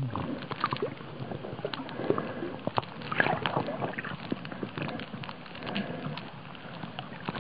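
Underwater sound from a camera held below the surface while snorkeling: irregular clicks and crackles over a steady hiss, with some bubbling and sloshing.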